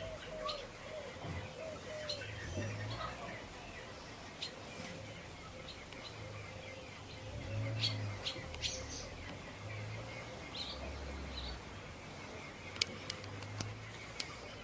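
Small birds chirping, short high calls repeated every second or so over a low outdoor rumble, with one sharp click near the end.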